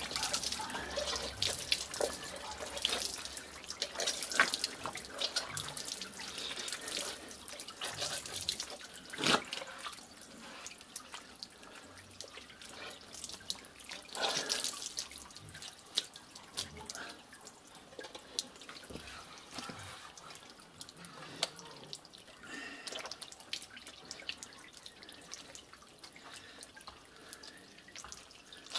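Hands working soaked cardboard and cement-sack paper pulp into a metal briquette press mould: irregular wet squishing and small splashes, with water dripping from the pulp.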